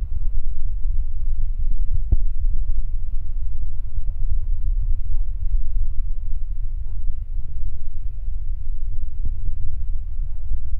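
P&H truck crane's diesel engine running steadily under load as it holds a steel pontoon section aloft, a loud, continuous low rumble.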